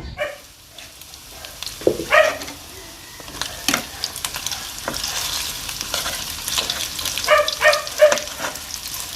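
Sliced potatoes frying in hot oil in a pan, sizzling, with a spatula stirring and knocking against the pan. A few short pitched calls cut in about two seconds in and again near the end.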